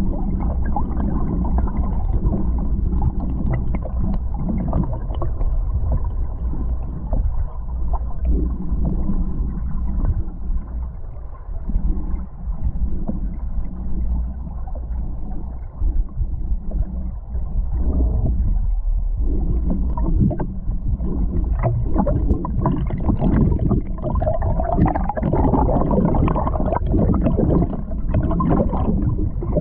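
River current heard underwater: a steady, muffled rushing and gurgling, mostly low in pitch, with many small scattered clicks and ticks.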